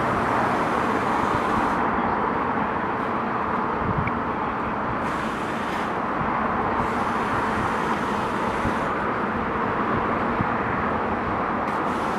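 A steady rushing hiss, with brighter hiss coming and going at a few moments.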